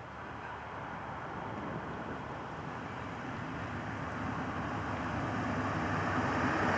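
Aircraft engine noise growing steadily louder as a plane approaches.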